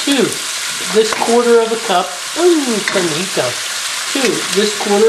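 Diced bacon sizzling in olive oil and ghee in a stainless steel skillet, stirred and scraped around the pan with a wooden spatula.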